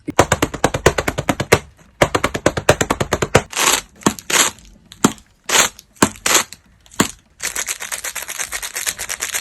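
Sound effects made with a wafer biscuit pack and wafers: two fast runs of sharp clicks, then several separate short crackly bursts, then a dense continuous crackle over the last two seconds.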